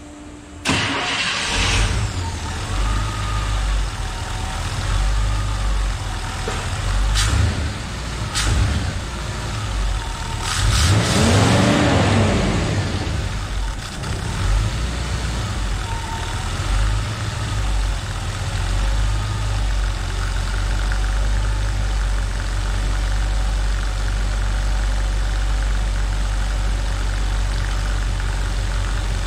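1972 International Scout engine on Hamilton throttle-body fuel injection, starting about a second in and running unevenly, with one rev up and back down around the middle, then settling to a steady idle. The idle air control valve is unplugged, so the idle is being held and set by the throttle-body idle screw alone.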